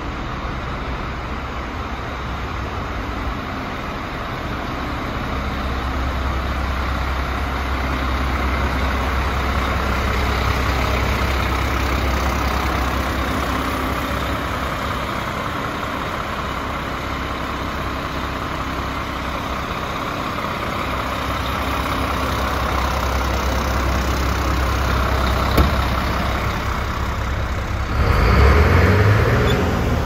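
DAF CF75 diesel truck engine idling steadily. A single sharp click comes a little before the end, and the last two seconds are louder and rougher.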